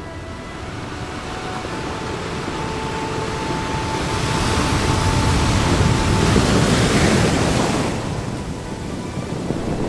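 Small waves washing onto the beach. The wash builds to its loudest a little past the middle and falls away suddenly about eight seconds in.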